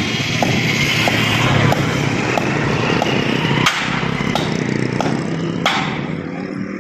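Hammer knocking on the steel top bracket of a rolling shutter's guide channel, about two blows a second with a few harder strikes, fixing the bracket in place. A motor vehicle's engine runs behind it, loudest about a second and a half in.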